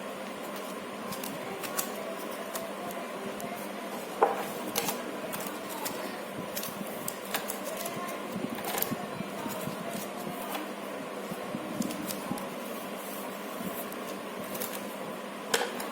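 Wooden ice cream sticks clicking and tapping now and then as they are handled and pressed into place, over a steady background noise.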